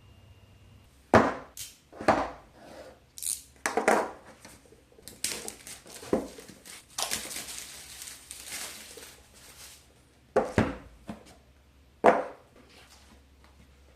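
A smartphone's retail box and packaging being handled: several sharp taps and knocks of the box, with a few seconds of packaging rustling and scraping in the middle.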